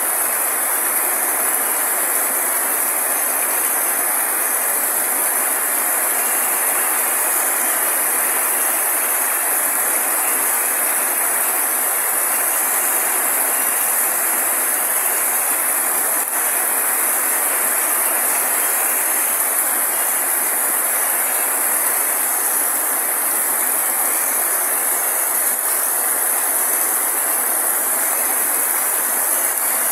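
Steady rain falling, an even, unbroken hiss with a strong high-pitched layer on top.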